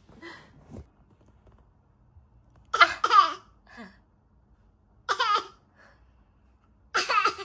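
A 9-month-old baby laughing in three short high-pitched bursts a couple of seconds apart, after a peekaboo.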